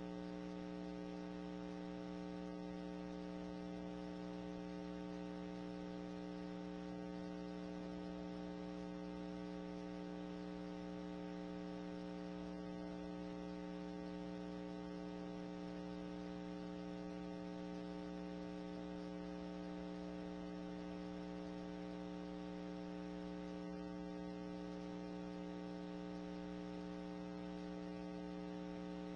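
Faint, steady electrical mains hum, unchanging throughout.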